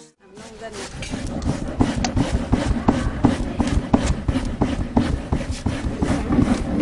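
Green papaya grated by hand on a grater, a fast run of rasping strokes.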